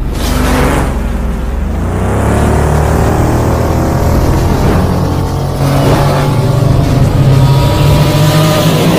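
Synthesized sci-fi light-cycle engine sound effect: a loud revving whine whose pitch rises through the middle, over a steady low hum, with sudden bursts at the start and around six seconds in.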